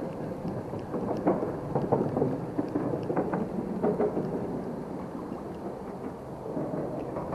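Rumbling, rustling handling noise right at the camera microphone, with irregular clicks and knocks, as hands and sleeve brush against it while working a spinning reel and rod. It is loudest in the first few seconds and eases off toward the end.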